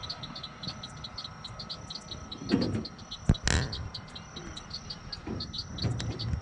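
Chorus of insects chirping in quick, even pulses, about four or five a second, over a faint steady high whine. A knock and a brief loud rustle come about halfway through.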